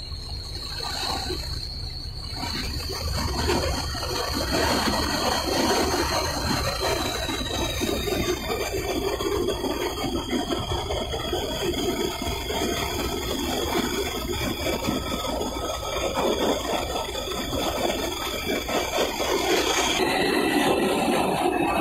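Sea water rushing and splashing against a moving pilot boat's hull in rough swell, over the steady low hum of its engines and a thin high whine that shifts in pitch near the end.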